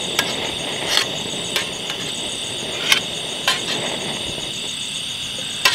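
Insects chirring steadily in a high, faintly pulsing drone, with about six sharp clicks or knocks scattered through it.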